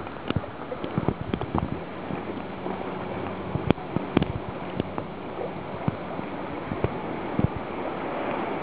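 Small waves lapping and slapping right at the microphone at water level, a steady wash broken by irregular sharp splashes.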